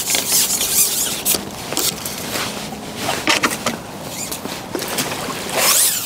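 Pole-fishing tackle and a landing net being handled on the bank: a few sharp knocks and clicks, then a splash of water near the end as water is disturbed at the front of the peg.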